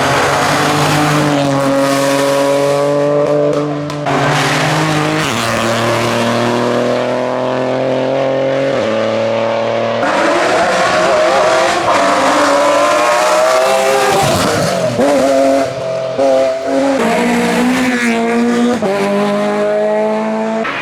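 Race car engine at hard throttle on a hillclimb, its pitch climbing and then stepping down at each gear change. In the second half the note wavers and briefly dips a few times as the throttle lifts.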